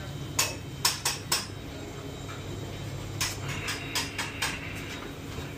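Kitchen clatter: sharp clinks and knocks of plates and utensils, a few in the first second and a half and a quicker run about three to four and a half seconds in, over a steady low hum.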